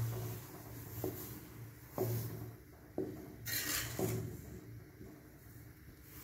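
Spatula stirring semolina into boiling water in a clay pot, scraping and knocking against the pot about once a second, with a brief hiss about three and a half seconds in.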